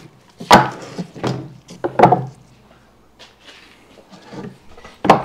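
A few sharp, irregularly spaced knocks on a wooden stretching board: a hammer tacking nails through a beaver hide into the board.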